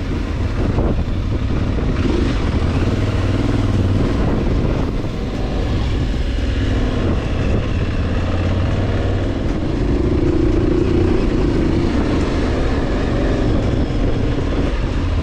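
Adventure motorcycle engine running steadily while riding, heard from the bike with wind buffeting the microphone; the engine note swells briefly about two-thirds of the way through.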